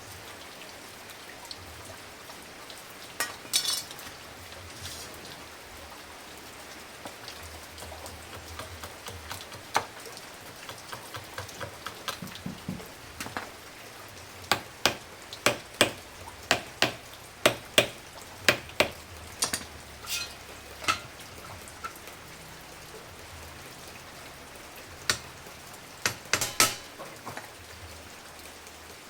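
Sharp knocks of hand work on metal over a steady hiss: scattered single strikes, then a run of about a dozen blows at roughly two a second in the middle, and a short cluster near the end.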